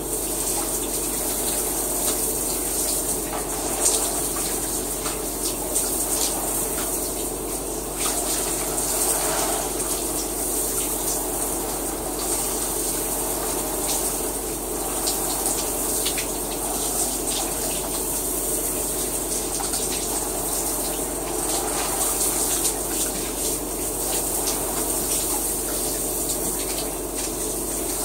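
Shower running: a steady spray of water with scattered splashes and drips.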